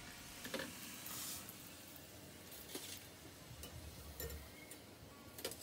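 Quiet kitchen sounds: a few light clicks and clinks of utensils over low background noise.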